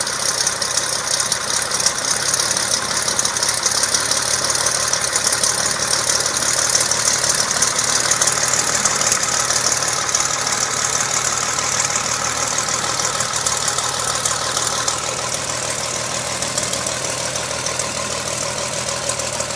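Continental O-300 six-cylinder air-cooled aircraft engine of a Cessna 172G running steadily on its first run after a top overhaul, easing slightly in level over the last few seconds.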